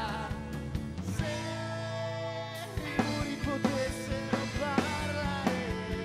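Live pop-rock band playing: drum kit, electric guitars and bass guitar. About a second in the band holds a chord with few drum hits, and the drums pick up a steady beat again about three seconds in.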